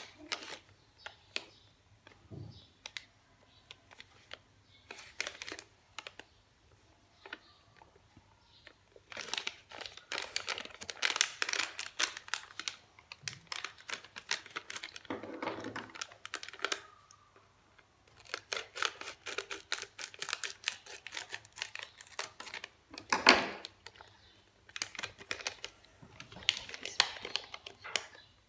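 Plastic sweet wrappers crinkling and crackling as they are handled, in bursts with scattered clicks between them: a Juzt Jelly cola bottles packet and a Hershey's Kisses foil pouch. One sharp crackle about 23 seconds in is the loudest.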